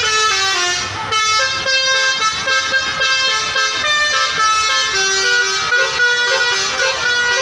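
A bus's telolet Basuri multi-tone air horn playing a melody: held horn notes that step up and down in pitch every half second or so, without a break.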